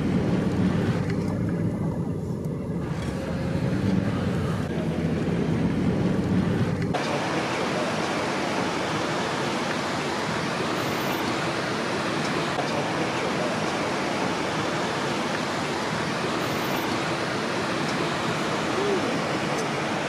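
A vehicle driving along a road, a steady low rumble of engine and road noise. About seven seconds in it cuts to a steady, even rushing noise.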